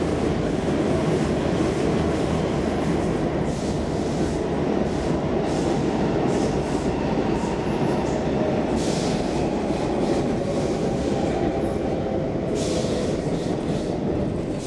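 Stockholm Metro C14 subway train heard from inside the car while running at speed: a steady running noise of wheels on rail, with brief hissing surges twice, about 9 and 13 seconds in.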